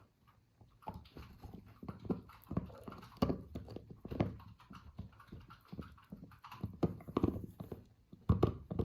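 Labradoodle puppy gnawing and mouthing a chew toy: an irregular run of clacks and soft thumps, with the loudest knocks about three seconds in and near the end.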